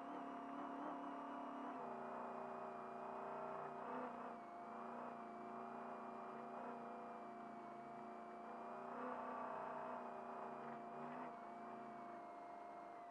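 Race truck's engine pulling hard at speed, heard from inside the cab, with road and tyre noise under it. The engine note steps down a little about two seconds in and then holds as the truck keeps accelerating, with a steady high tone running throughout.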